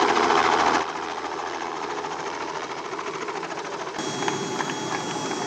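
Robinson R66 helicopter flying low, its rotor beating in a rapid, even pulse over the engine noise. The level drops about a second in, and a steady high tone comes in about four seconds in.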